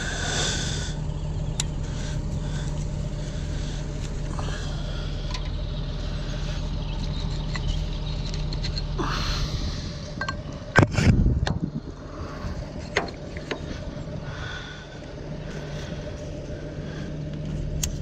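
Fendt tractor's diesel engine idling steadily, with a few light metallic clicks and one loud clank about eleven seconds in as the mounted plough is adjusted by hand.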